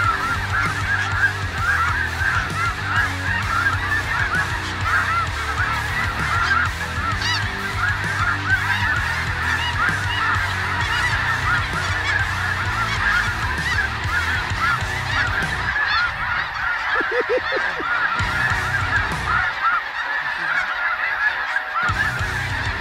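A large flock of snow geese calling overhead: a continuous clamour of many overlapping high honks. A low rumble sits under the calls and drops away about fifteen seconds in.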